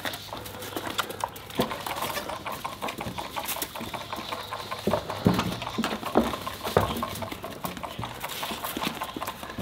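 Nigerian dwarf goat kids scuffling and clattering their hooves on wooden boards and gravel as they jostle at a bottle rack: a busy run of irregular knocks and patters, with a few louder knocks a little past halfway.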